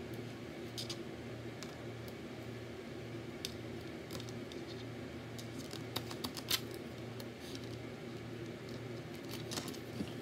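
Light, scattered clicks and taps of wooden craft sticks and long fingernails being handled on a tabletop, the loudest few about six seconds in, over a steady low room hum.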